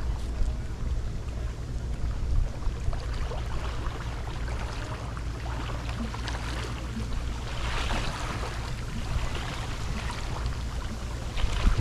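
Wind rumbling on the microphone over the steady wash of choppy river water, with small splashes and crackles here and there.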